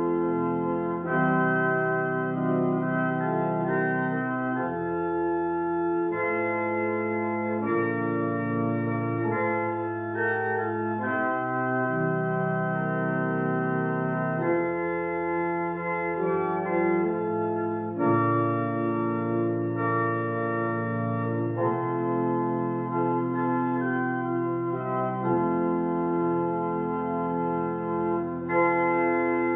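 Organ playing a postlude: full sustained chords over a bass line, the harmony changing every second or two at a steady level.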